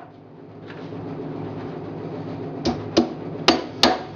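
Hammer driving 2-inch galvanized nails into the corner joints of a wooden hive box: after a pause of about two and a half seconds, five quick strikes, about three a second.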